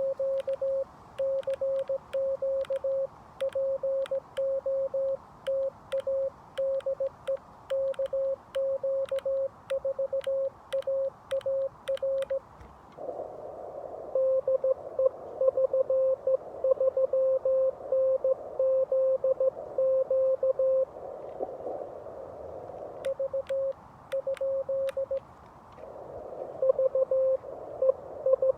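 Morse code (CW) beeps from a Xiegu G90 HF radio: a single steady tone keyed in dits and dahs. For the first dozen seconds it is the operator's own sidetone at about 17 words per minute, with the sharp clicks of the paddle on each element. About 13 seconds in, it turns to the other station's CW signal, heard through receiver hiss that swells and fades.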